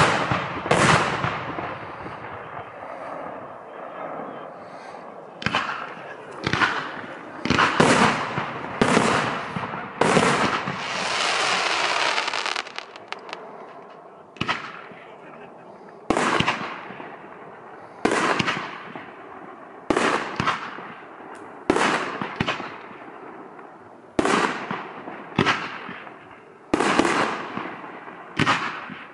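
Aerial fireworks shells bursting one after another, a sharp bang every second or two, each with a fading echo. About ten seconds in comes a steady hiss lasting a couple of seconds, then a short lull before the bangs resume.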